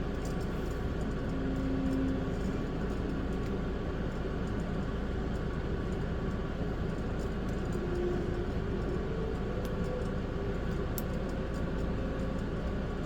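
Steady background hum with a few faint, sharp clicks.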